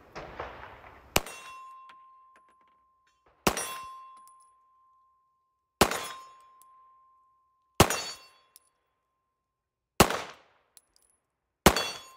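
Six 9mm pistol shots from a Sig Sauer P226 Legion SAO, about two seconds apart, fired at steel plates. Most shots are followed by the clear ringing of the struck steel, one steady tone fading over a second or two; the fifth shot has no ring.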